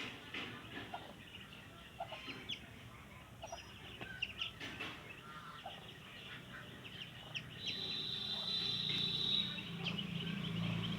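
Mallard ducklings peeping: many short, high chirps throughout. A steady high tone is held for about two seconds past the middle, and a low hum comes in near the end.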